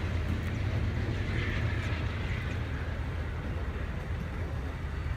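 A train rumbling steadily, low and even, slowly fading.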